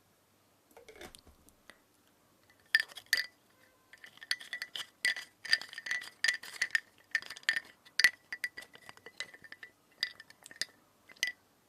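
Hard edible spoon clicking and clinking against teeth in quick irregular taps, each with a faint glassy ring. The clicks are sparse at first and come thick and fast from a few seconds in.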